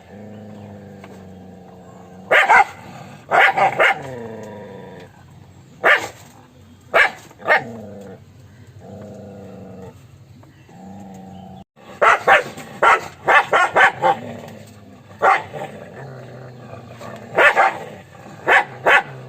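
Dog barking: short, sharp barks singly and in quick runs of two to four, with low drawn-out sounds between them. An abrupt cut about twelve seconds in is followed by a rapid run of barks.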